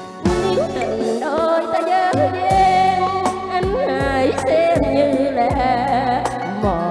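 A woman singing a Vietnamese song into a microphone with vibrato, over backing music with a regular drum beat.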